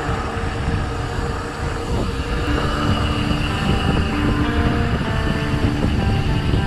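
Wind rushing over a chest-mounted action camera's microphone, with the tyre noise of a mountain bike rolling on a concrete road: a steady low rumble.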